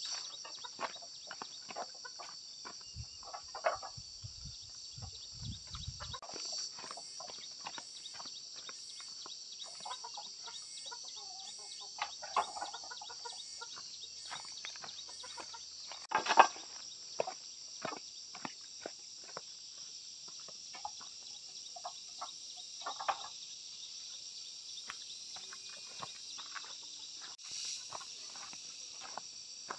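Steady high-pitched insect chorus, with scattered clinks and knocks of clay roof tiles being handled and stacked; the loudest knock comes about halfway through.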